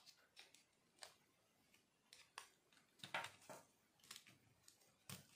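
Faint clicks and rattles of small RC crawler chassis being handled and set down on a table, with a few louder clicks about three seconds in.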